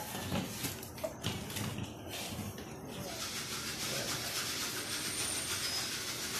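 A bristle paintbrush sweeping sawdust off a routed mahogany rifle stock and workbench: a dry brushing hiss that becomes steadier from about three seconds in.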